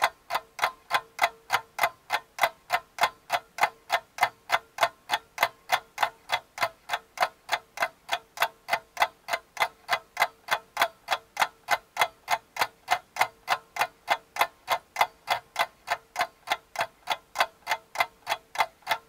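Clock-ticking sound effect: evenly spaced ticks, about three a second, over a faint steady tone.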